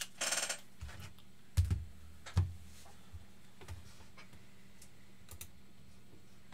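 Scattered taps and clicks of a computer keyboard, with two dull thumps about a second and a half and two and a half seconds in. The clicks thin out near the end.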